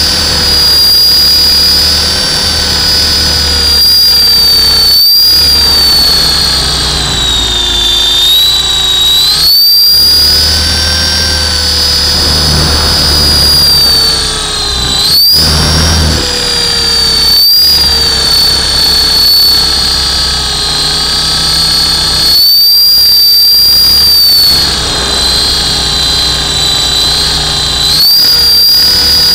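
Hughes 300 scale RC helicopter's motor and rotor, heard from a camera on board: a loud high whine over a lower hum, both gliding up and down in pitch as the throttle and rotor load change in flight.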